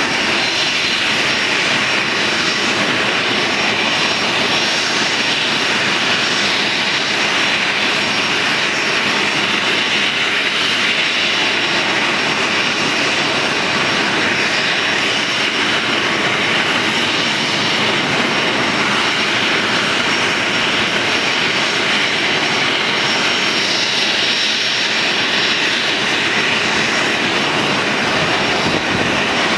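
Boeing 737-300's CFM56-3 turbofan engines running steadily at ground idle: a loud, even hiss with a faint high whine held at one pitch.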